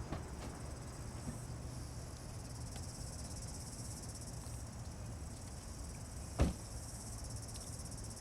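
Insects chirring steadily and high-pitched over a low rumble. A single thump about six and a half seconds in is the loudest sound.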